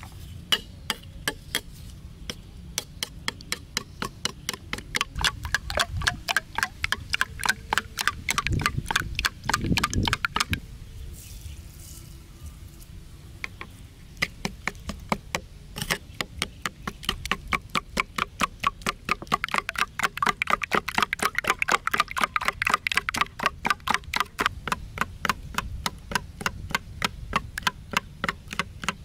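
Spoon beating eggs in a ceramic bowl: quick, regular clinks of the spoon against the bowl, about five a second, stopping for a few seconds about ten seconds in and then starting again.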